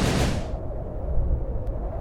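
Layered explosion sound effects: a loud blast that cuts off about half a second in, leaving a low rumble.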